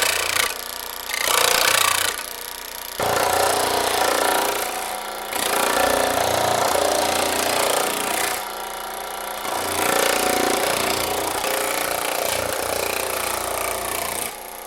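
Baileigh PH-19 power hammer running, its ram rapidly pounding sheet metal with a thumbnail shrinking die. The clatter swells and eases as the panel is worked, and drops off near the end.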